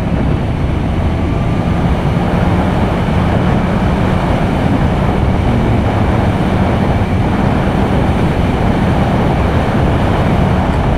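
A new BMW S1000RR-family superbike's inline-four engine running steadily at highway cruising speed, buried in heavy wind rush over the rider's microphone.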